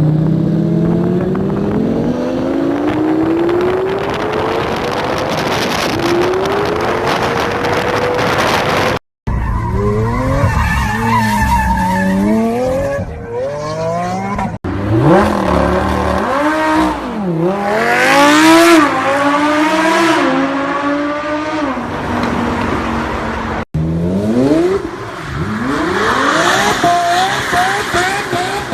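Lamborghini supercar engines revving hard. First comes a long climb in pitch as the car accelerates through the gears, then quick rev rises and drops mixed with tyre squeal, across several short clips cut together.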